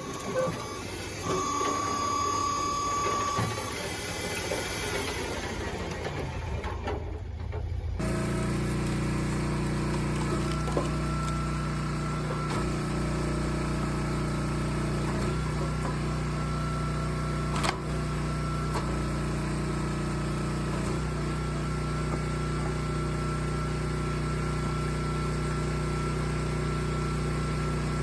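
Machinery running. First comes a shifting mix of mechanical clatter and tones, then, after an abrupt change about eight seconds in, a steady engine hum from a log splitter with one sharp click partway through.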